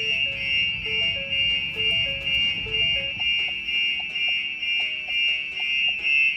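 Starline S9 car alarm siren sounding a steady high-pitched tone at full alarm, set off by entering the car without the key tags present. Background music plays underneath, its bass dropping out about halfway through.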